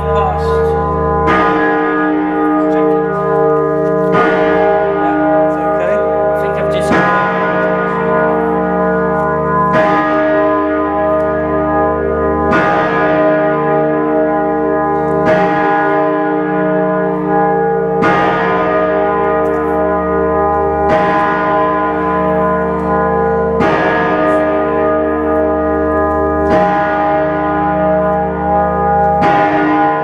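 Great Peter, the big bell in York Minster's north-west tower, rung by hand from its rope: a loud stroke about every three seconds, about eleven in all, each one ringing on into the next over a low hum.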